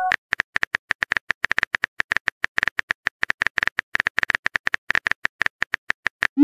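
Typing sound effect from a messaging screen: a quick, uneven run of short key clicks, several a second.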